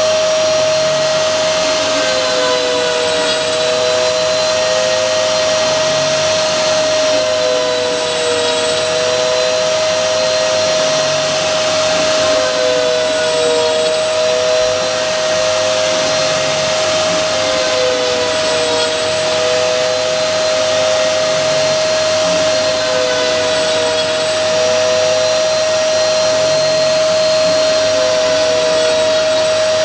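CNC router spindle running steadily while milling, a high whine over a hissing rush. A second, slightly lower tone dips in pitch briefly and recovers about every two and a half to three seconds.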